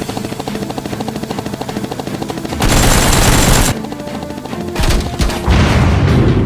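Action music with a steady pulsing beat, broken about two and a half seconds in by a loud burst of automatic-gunfire sound effect lasting about a second, with more bursts of gunfire near the end.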